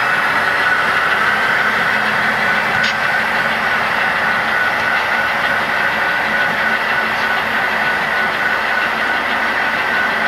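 HO scale model covered grain hopper cars rolling past on the track: a steady rolling noise of metal wheels on rail with a steady high whine, and a single click about three seconds in.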